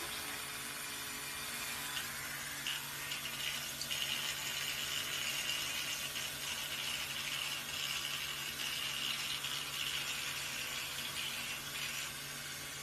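Electric toothbrush running with a steady buzz while its brush head is held against a parrot's head feathers; the buzz grows stronger about four seconds in.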